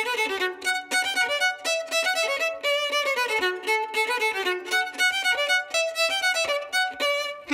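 Solo violin playing a folk dance tune in quick, short notes.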